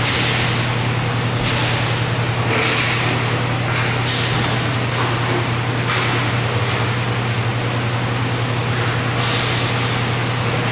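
Indoor roller hockey rink during play: a steady low hum runs under a series of short, hissing swishes that come every second or so, typical of inline skate wheels sliding and stopping on the rink floor.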